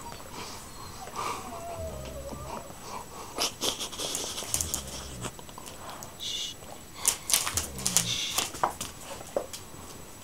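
A sleeping pet snoring: three low snores about three seconds apart, with scattered clicks and knocks between them.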